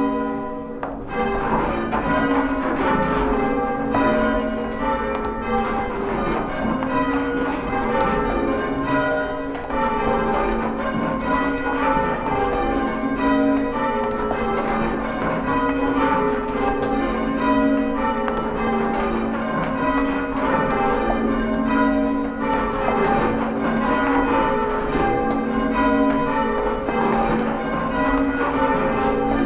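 Church bells rung in changes, English full-circle ringing: a steady, unbroken run of bell strikes in quick succession, each bell ringing on under the next.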